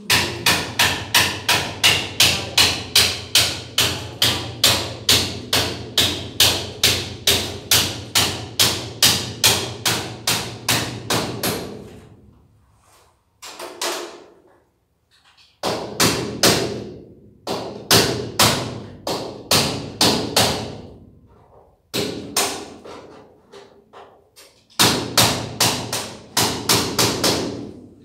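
Repeated hammer blows, evenly paced at nearly three strikes a second in a long run, then in shorter runs with brief pauses between them.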